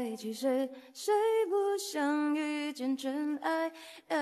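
Background music: a woman singing, with notes held for about a second at a time.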